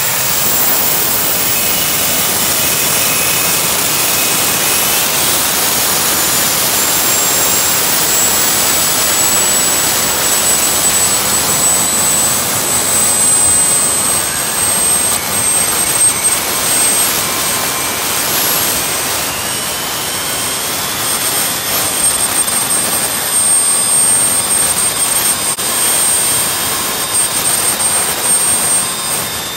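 Homemade gas turbine jet engine running loud, a jet roar with a high turbine whine on top. The whine climbs slightly in pitch a few seconds in and again about two-thirds of the way through.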